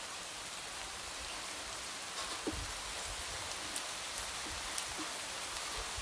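Light rain falling steadily: an even hiss, with a few sharper drop taps standing out now and then.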